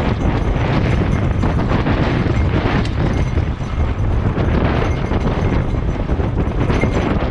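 Wind buffeting the action camera's microphone in a loud, steady rumble, mixed with the rattle of a mountain bike's tyres and frame over a rough, rocky dirt trail while riding.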